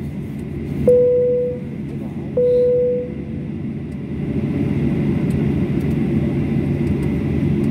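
Airliner cabin chime sounding twice, single ringing tones about a second and a half apart, over the steady hum of the taxiing jet's cabin. The engine noise swells a little about four seconds in.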